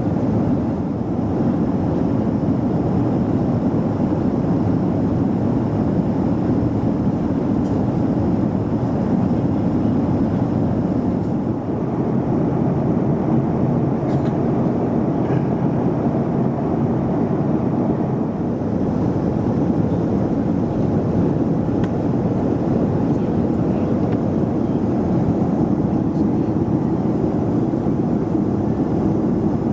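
Steady cabin noise of a Boeing 737-400 in flight: an even rush of engine and airflow noise, heaviest in the low end, with no change throughout.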